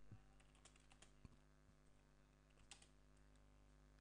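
Faint, scattered clicks of a computer keyboard and mouse, a handful of keystrokes with one sharper click about two-thirds of the way through, over a steady low hum.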